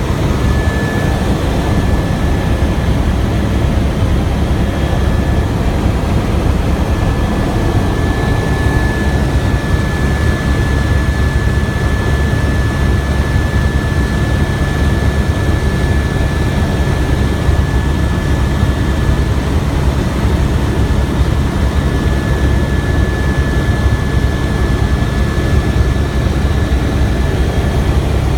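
Helicopter in flight: steady loud turbine and rotor noise with a thin, steady high whine.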